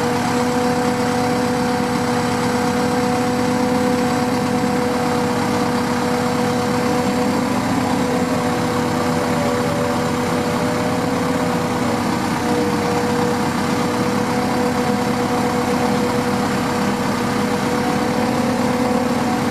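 Liebherr LTM1350-6.1 mobile crane's diesel engine running steadily while the crane holds a suspended load, a constant drone whose pitch wavers slightly partway through.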